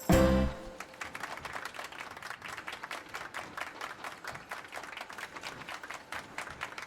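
A brief loud low thud at the start, then a crowd clapping steadily.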